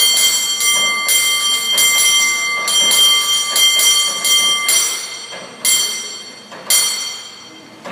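Cable car bell rung in a quick, rhythmic run of clanging strikes, each ringing on with bright overtones. The run breaks off about five seconds in, and two last strikes about a second apart are left to ring out and fade.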